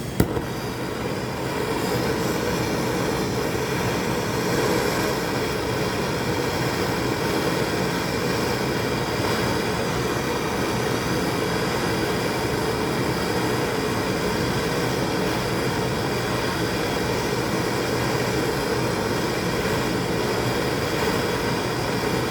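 Handheld gas torch flame burning with a steady rush, heating a soldered copper plumbing joint to melt the solder and free the fitting. It comes up just after a click at the start and then holds even.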